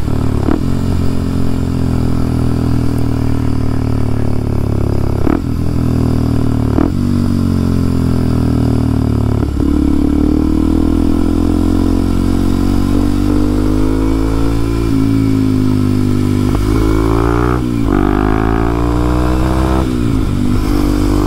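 Kawasaki KLX230SM's single-cylinder engine, breathing through a Norifumi T-Rex aftermarket exhaust, running under way. The engine note rises and falls with the throttle and breaks off briefly several times, as with gear changes or the throttle closing.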